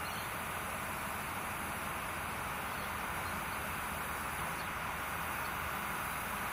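Steady outdoor hiss with a faint low hum from a distant V/Line N class diesel locomotive approaching, growing slightly louder toward the end.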